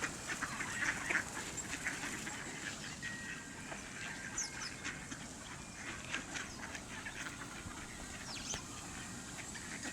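A flock of mallard ducks quacking, many short calls overlapping one another, busiest in the first couple of seconds.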